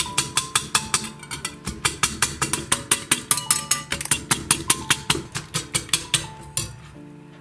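Wire whisk clinking quickly against a glass bowl while beating eggs with parsley, about six clinks a second, stopping near the end, over background music.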